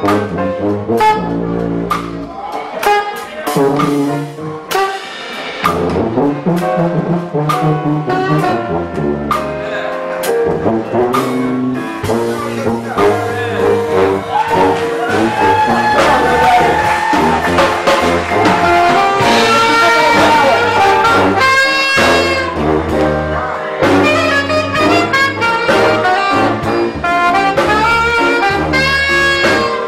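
Live jazz band: a sousaphone plays a low, stepping bass line while a saxophone plays melody lines above it, over drums.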